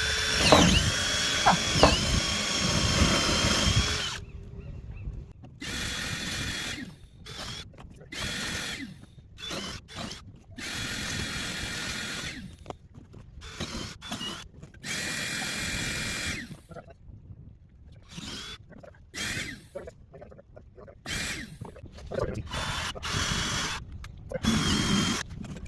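Electric drill boring holes in a wooden deck board, run in repeated bursts: one long run whose pitch dips as the bit bites, then a string of shorter trigger pulses with pauses between.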